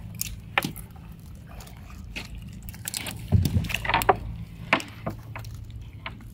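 A crab net being hauled into a boat with a mud crab tangled in it: water dripping and splashing off the net, with scattered knocks and clicks as net and crab hit the boat. The strongest knock comes about three seconds in. A low steady hum runs underneath.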